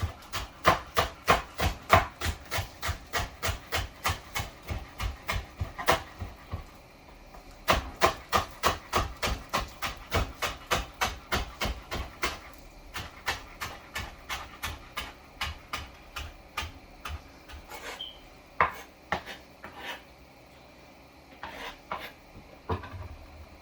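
Knife chopping shallots on a cutting board: a rapid, even run of taps about three to four a second, a brief pause, more steady chopping, then a few scattered strikes near the end.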